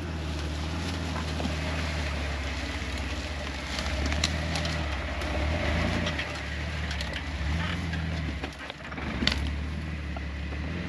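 Off-road 4x4's engine running at low speed, its note rising and easing, with a few sharp clicks and knocks over it.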